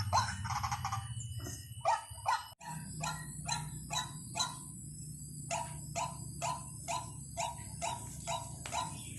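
White-breasted waterhen calling, a run of short harsh notes repeated about twice a second, as used in a recording played to lure waterhens. The sound drops out for an instant under three seconds in and the calling resumes, with a short pause near the middle.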